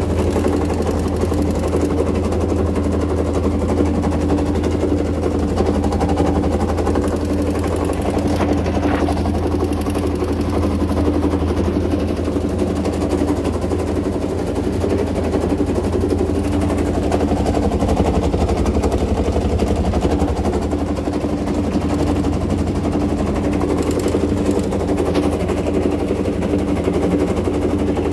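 LG TurboWonder 6.0 kg top-load washer (WT-T7012EN) spinning at speed in a spin-only cycle: a steady motor hum with a fast, continuous rattle as the machine shakes hard enough to seem about to self-destruct.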